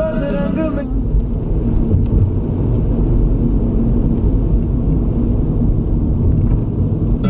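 Steady low rumble of a Hyundai Venue's road and engine noise heard from inside the cabin while driving on a wet road, taking over after a song cuts off about a second in.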